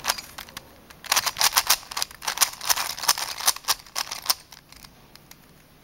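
Plastic 3x3 Rubik's cube being turned by hand: a rapid run of clicking and clacking layer turns that dies away about four and a half seconds in.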